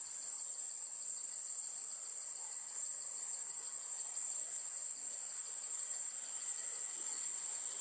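Steady, high-pitched chorus of insects buzzing in the trees, with a faint fast pulsing under the main drone.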